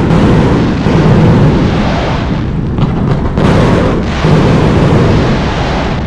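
Fireworks exploding in a dense barrage: continuous, very loud booming and rumbling with new blasts landing about a second in and again around three and a half and four seconds in.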